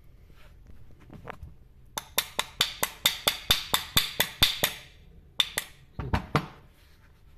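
Small hammer tapping on an angle grinder's aluminium gear housing to seat the armature: about five quick, light metallic taps a second with a slight ring for under three seconds, then two more taps and a few duller knocks near the end.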